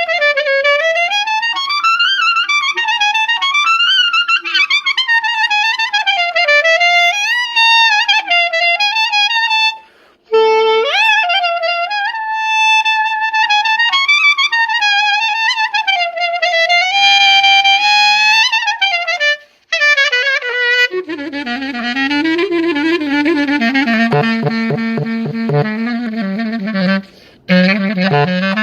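Selmer Privilege saxophone played solo: quick melodic runs and phrases with brief breaths at about ten and twenty seconds in, a high held passage just before the second breath, then a lower-register passage with a rougher, buzzier tone near the end.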